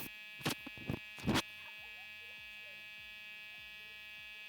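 A steady electric buzz with several even tones, with three sharp knocks in the first second and a half.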